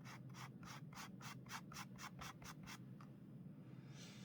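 Pastel stick rubbed rapidly back and forth on paper, about six or seven faint strokes a second for nearly three seconds, then one or two more strokes near the end.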